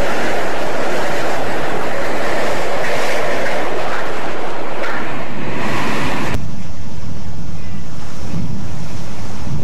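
Loud storm noise: a rushing of hurricane wind and water. About six seconds in it cuts abruptly to a low rumble of wind buffeting the microphone.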